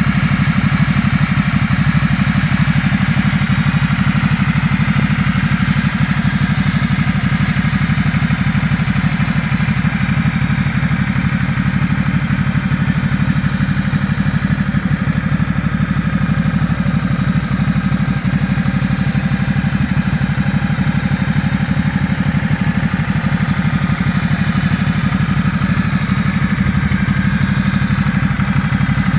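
2013 Ducati Multistrada 1200 S Touring's Testastretta L-twin engine idling steadily.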